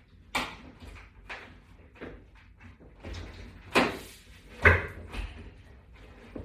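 A series of knocks and clunks as a wall-mount bracket with toggle bolts is pushed against a drywall panel to seat the bolts in their holes, the two loudest about four and five seconds in.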